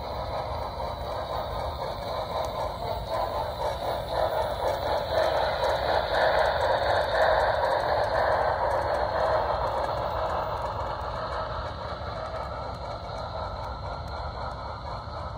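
HO scale model passenger train clattering along the track, its wheels rattling over the rails. It grows louder as it runs past, loudest about halfway through, then fades as it moves away.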